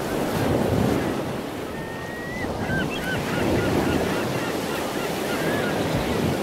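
Steady rushing noise of waves and wind, like surf. A few short, faint chirps come in from about two to five seconds in.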